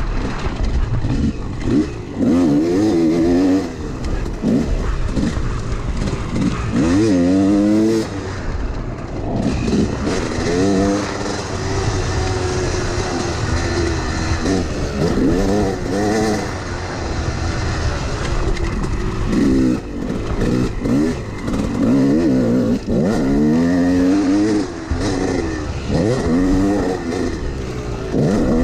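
Yamaha YZ250 two-stroke dirt bike engine revving hard and backing off again and again as the rider works the throttle and gears around a rough motocross track, each climb in pitch lasting a second or two.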